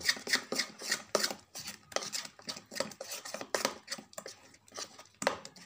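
A hand mixing thick ground green moong batter in a plastic bowl: a quick, uneven run of wet slaps and scrapes, about three a second.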